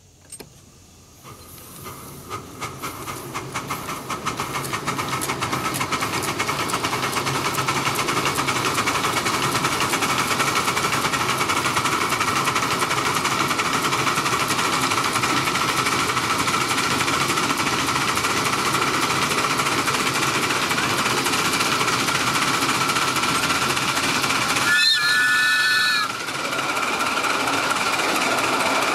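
5-inch gauge live-steam D51 model steam locomotive running, its rapid exhaust beats and steam hiss building up over the first several seconds and then holding steady. About 25 seconds in, a short whistle blast sounds for about a second.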